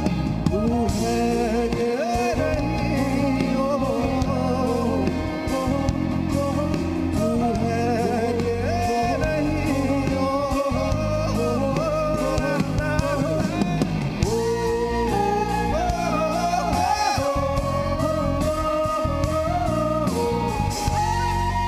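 A live band playing an instrumental break in a pop ballad: drum kit with cymbals, electric guitar and keyboards under a wandering lead melody line.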